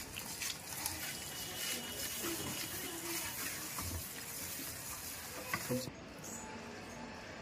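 Hands squishing and scraping a wet masala paste of spice powders, yoghurt and lemon juice around a large steel plate, with a steel bowl scraped against it at the start. Near the end the noise drops to softer sounds of the paste being rubbed onto a raw chicken.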